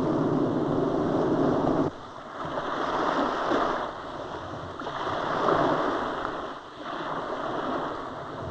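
Ocean waves washing in and drawing back, each swell rising and falling about every two seconds. Before that, a steady heavy rush cuts off abruptly about two seconds in.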